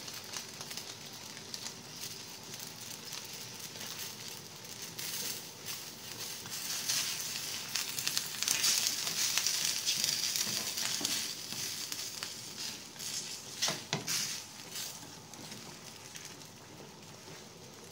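Sinigang broth with fish head and shrimp boiling hard in a stainless steel pan while a wooden spatula stirs through it. The bubbling and stirring grow louder in the middle, and two sharp knocks come about three-quarters through.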